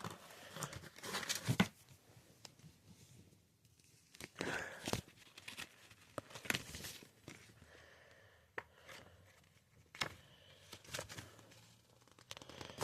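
Plastic packaging and bags from a 3D printing pen kit rustling and crinkling in irregular bursts as the contents are handled, with a few light clicks.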